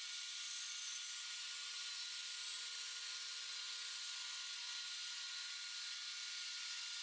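A steady, faint hiss with no distinct knocks or cuts in it.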